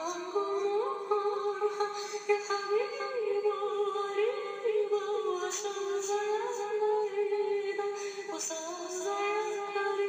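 A woman singing a slow Egyptian song in Arabic, holding long notes with wavering, bending ornaments.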